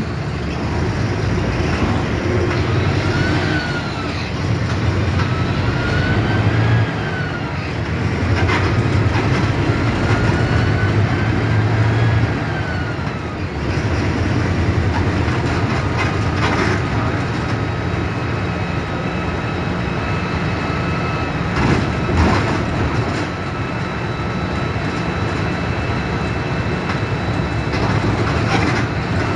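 Mercedes-Benz OF 1721 BlueTec 5 bus's front-mounted diesel engine pulling under load, with a whine that rises as it accelerates and falls away at each of three gear changes in the first half, then running more steadily. A few sharp knocks or rattles from the body come through along the way.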